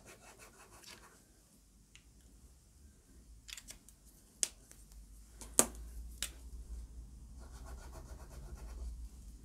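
Fine-tip fineliner drawing pen scratching lightly across heavyweight cartridge paper as a small test squiggle is drawn, then again near the end with a second pen. In between, a few sharp clicks as a pen cap is taken off and snapped on and a pen is set down.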